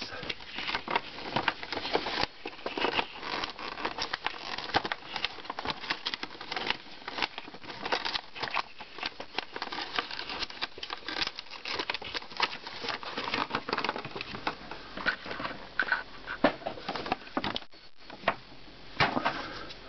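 Funko Pop packaging being handled: the cardboard box and clear plastic insert rustle, and the plastic crinkles and crackles in quick, irregular clicks as the figure is worked out of it.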